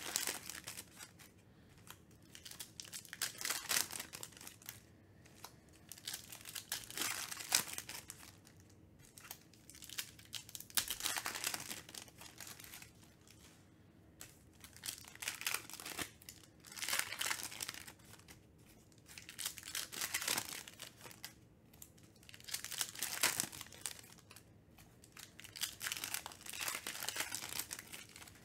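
Foil trading-card pack wrappers being torn open and crinkled by hand, in repeated bursts of crackling every couple of seconds, with quieter stretches between as the cards are handled.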